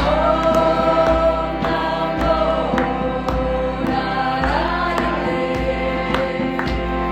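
Choral music: several voices singing long held notes that glide between pitches, over sustained accompaniment with a light steady beat.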